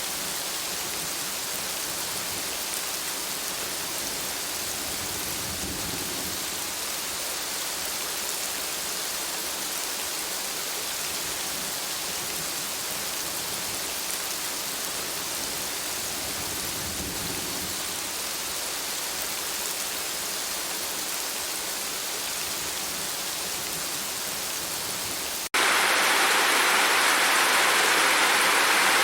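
Steady rain falling, with two low rumbles of distant thunder. About three-quarters of the way through it cuts suddenly to much louder, harder rain.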